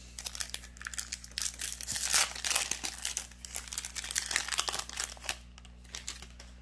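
Foil trading-card booster pack wrapper crinkling and tearing as it is ripped open by hand, a busy crackling for about five seconds that dies away near the end.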